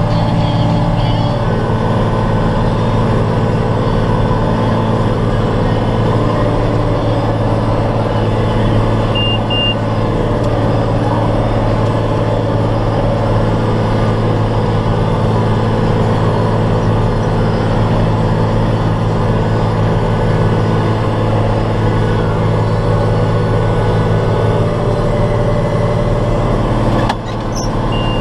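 Vehicle engine running at a steady speed, a constant low drone that holds the same pitch and level, with a brief dip near the end.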